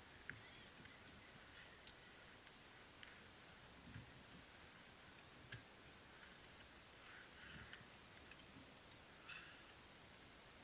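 Faint, irregular clicks and pops, about seven, from a small wood fire burning in a steel vegetable steamer while it is tended with metal tongs. The loudest click comes a little past halfway.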